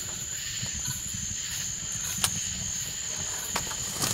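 Crickets trilling steadily and high in the night, over low rustling and footstep noise as someone pushes through palmetto scrub, with a few sharp snaps, the loudest a little over two seconds in.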